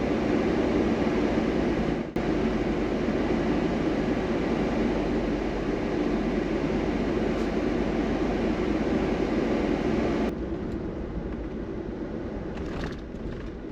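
Steady road and engine noise inside a moving vehicle's cabin, dipping briefly about two seconds in and turning quieter and duller near the end.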